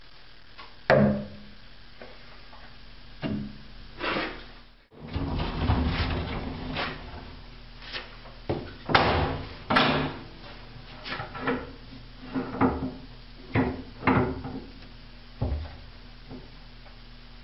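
Large wood lathe running with a steady motor hum while a turning tool is held against an out-of-round log blank, giving about a dozen irregular, sharp knocks as the tool strikes the high spots of the spinning wood: roughing the blank down toward round.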